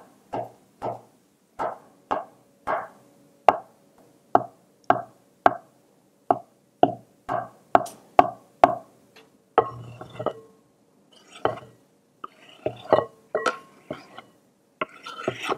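Chef's knife chopping on a wooden cutting board: steady knocks about two a second as imitation crab sticks are diced, then looser, uneven chopping through hard-boiled eggs with some scraping. Near the end the knife scrapes the chopped egg off the board into a glass bowl.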